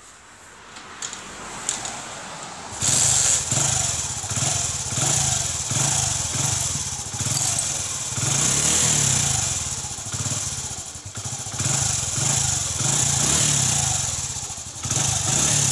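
Hero Passion Pro motorcycle's single-cylinder four-stroke engine starting about three seconds in and then idling with a steady pulsing beat, run so the headlight supply can be tested.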